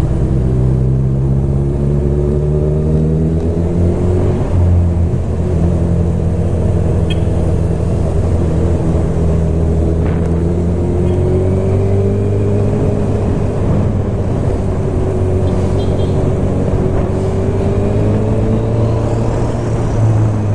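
Honda inline-four motorcycle engine heard from the rider's seat, running steadily at low town-riding speed, its pitch rising and falling gently with small throttle changes.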